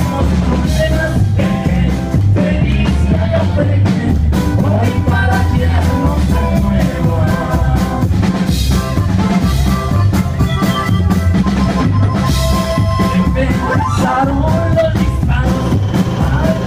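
Live norteño band playing a corrido: a steady drum-kit beat under bass, electric guitar and a melodic lead line.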